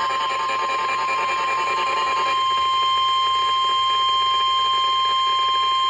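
NOAA Weather Radio 1050 Hz warning alarm tone: one steady high-pitched tone, sounding the alert that comes before a tornado warning is read out.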